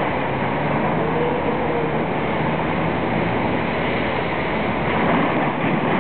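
Steady rumble of heavy machinery on a demolition site, with a faint engine hum underneath, a little louder near the end.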